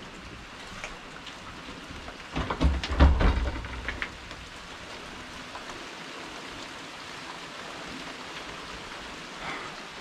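Steady rain falling. About two and a half seconds in comes a loud burst of low rumbling and sharp cracks, lasting a little over a second.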